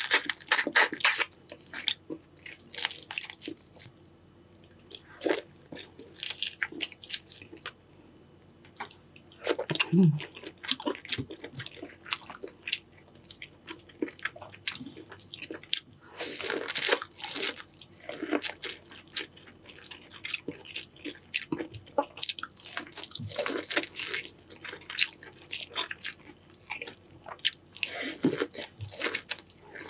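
Close-up eating sounds of a seafood boil: biting and chewing in bursts of crisp clicks, with quieter pauses between mouthfuls.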